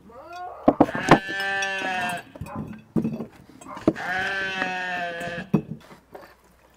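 A bleating farm animal, sheep or goat kind, gives two long calls of about two seconds each. A few light clinks of glass jars being handled fall between them.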